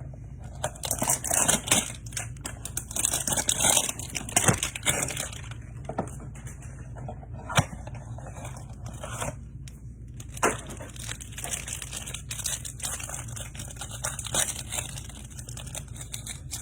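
Trading-card hanger box packaging being torn open and handled: irregular crinkling and tearing with a few sharp snaps.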